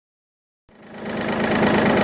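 An engine running steadily with a fast, even pulse, fading in from silence less than a second in.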